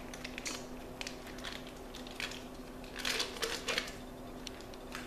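Cream cheese being unwrapped and scraped from its crinkly wrapper into a stainless steel mixing bowl: scattered crinkles and scrapes, loudest about three seconds in. A steady low hum runs underneath.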